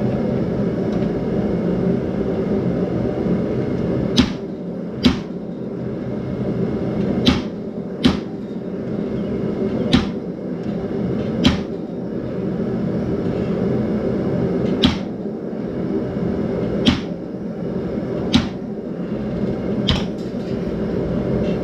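Treadle hammer striking a chisel held on a hot steel leaf, about ten sharp metallic blows spaced a second or more apart, cutting veins into the leaf. A steady low drone runs underneath.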